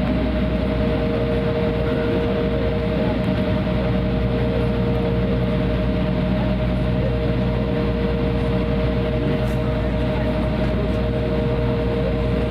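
Cabin noise of an Embraer 175 taxiing, heard from a seat over the wing: its General Electric CF34 turbofan engines at taxi power give a steady hum with two steady tones over a low rumble.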